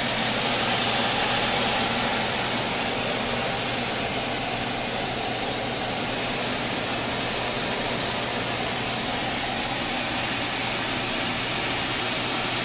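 Air handling unit blower running: a steady rush of air with a low hum, drawing outside air in through the fully open fresh-air damper.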